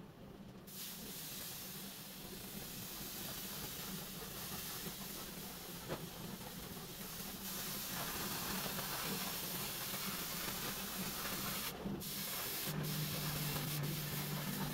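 Steady hiss of compressed air from an air spray gun, starting about a second in and cut off briefly twice near the end. A low steady hum runs underneath.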